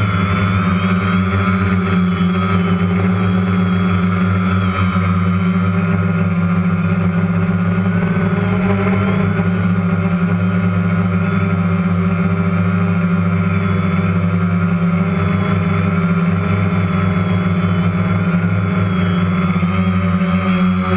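DJI Phantom quadcopter's rotors humming steadily, with a higher whine that wavers slightly in pitch.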